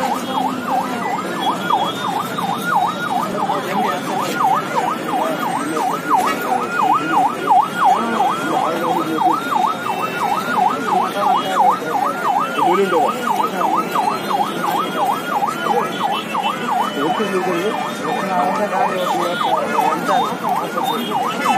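Emergency vehicle siren sounding a fast yelp, its pitch sweeping up and down about three or four times a second at a steady level.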